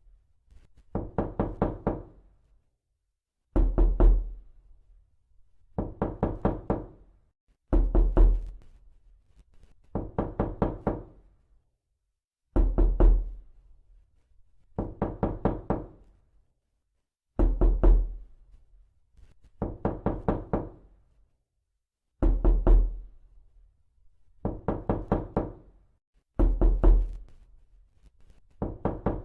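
Knocking on a door, knuckles rapping in quick bursts of about four to six knocks. A burst comes every two seconds or so, with silence in between.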